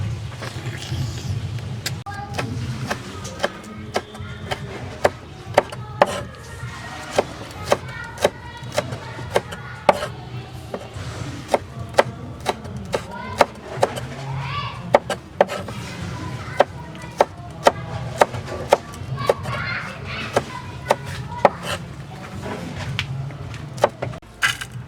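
Knife chopping on a wooden cutting board: sharp knocks at an uneven pace, about one to two a second, likely star gooseberries and green mango being cut.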